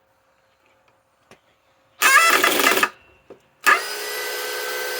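DeWalt DCD805 cordless drill in low gear (speed 1), powered by a Flex 6 Ah battery through an adapter: a short trigger pull with the motor pitch rising about two seconds in, then the drill running steadily at constant speed from near the four-second mark.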